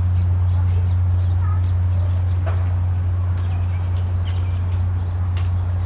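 A loud steady low hum throughout, with small birds chirping faintly and intermittently over it.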